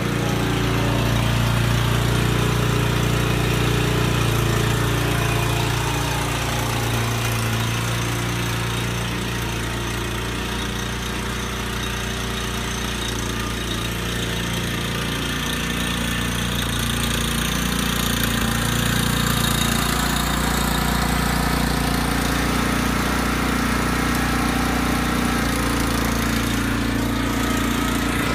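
Lawn mower engine running steadily, rising and falling a little in loudness.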